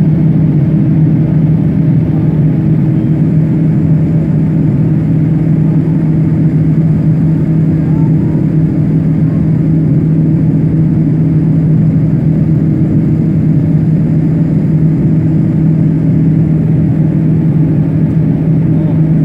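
Airliner cabin noise from a Rolls-Royce turbofan engine just outside the window: a loud, steady jet drone with a low hum held at one pitch throughout.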